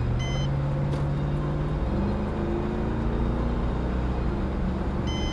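Fire department vehicle's engine running under acceleration, its note stepping up in pitch through the gears as it picks up speed. A brief high electronic beep sounds near the start and again near the end.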